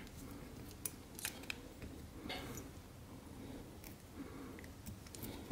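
Faint, scattered sharp clicks of small fly-tying scissors and tool handling at the vise, about half a dozen over a few seconds.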